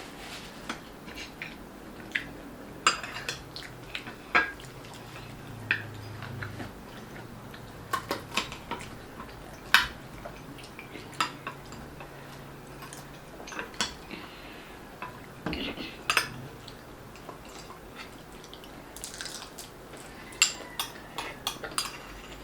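Cutlery clinking and scraping against plates while eating: irregular sharp clicks and taps, a few louder ones, scattered throughout.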